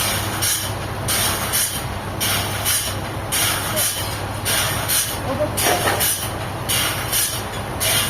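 Sawmill machinery running: a steady low hum under a rhythmic hiss that repeats about every half second.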